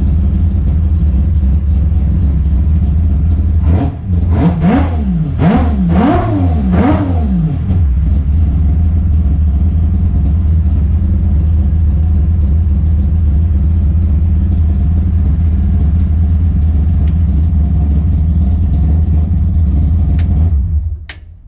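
Mazda 20B three-rotor rotary engine idling, given three quick revs a few seconds in that rise and fall in pitch, then settling back to a steady idle. It is switched off near the end and the sound drops away.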